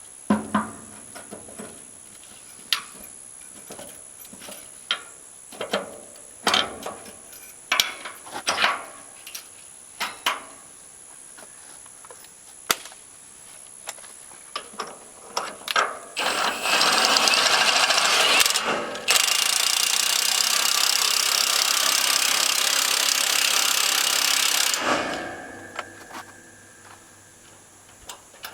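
Scattered clicks and knocks of a socket and tools being handled, then an impact wrench hammering in two runs, one of about two seconds and one of about six, as it drives the nut welded onto a heavy-duty cattle catch jack to crank the jack.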